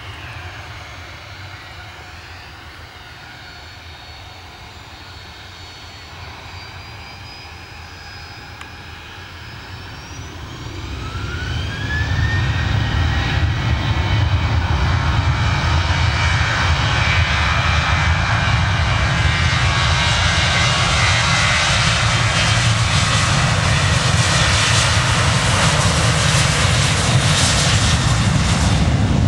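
Boeing 737-800's twin CFM56-7B turbofan engines whining at low power, then spooling up with a rising whine about ten seconds in and settling into a loud, steady roar at takeoff thrust.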